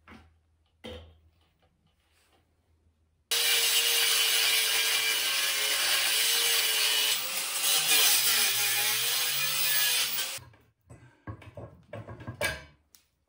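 Angle grinder with a thin cutting wheel slicing through the steel tube frame of an electric scooter: a loud, steady grind starts about three seconds in and stops abruptly about seven seconds later, its pitch sagging briefly near the end. A few knocks and clanks follow.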